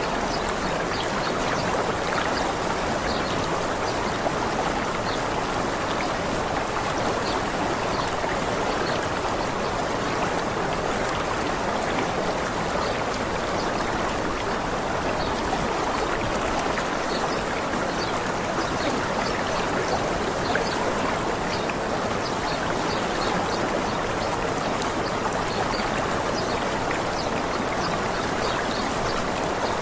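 Steady rushing of a small waterfall, with faint short high chirps of birds scattered throughout.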